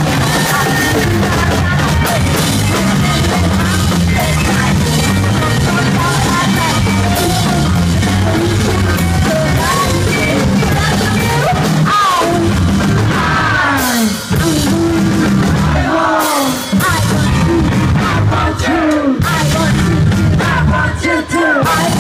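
Live rock and roll band playing loud: electric guitar, bass and drum kit, with a woman singing and shouting over it. In the second half her voice turns to sliding yells, and the band cuts out for an instant a few times.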